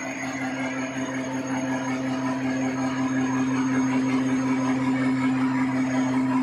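Horizontal milling machine running, its spindle turning the arbor and cutter: a steady hum with a fast pulsing beat beneath it, slowly getting louder.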